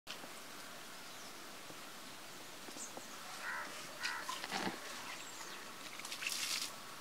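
Steady outdoor background hiss with a few short bird chirps about halfway through, and brief scratchy and rustling noises, the loudest near the end.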